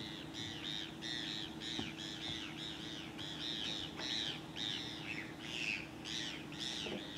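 Many birds calling at once: short, high, arching calls overlapping about three or four a second, over a faint steady low hum.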